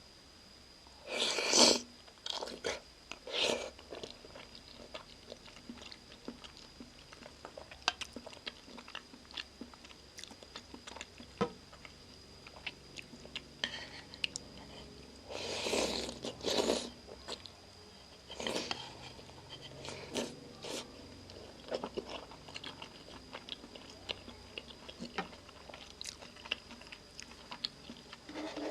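Close-miked eating of Shin Ramyun noodle soup with shrimp and egg: steady chewing with many small wet mouth clicks, and two louder bursts, one about a second in and another around the middle.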